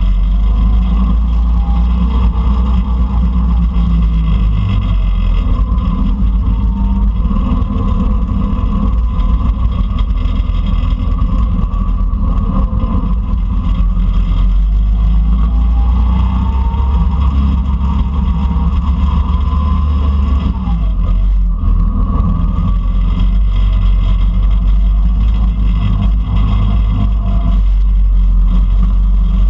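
Go-kart engine running at speed on a track, its pitch rising and falling as the kart accelerates and slows. A heavy, steady rumble comes through the camera mounted low on the kart.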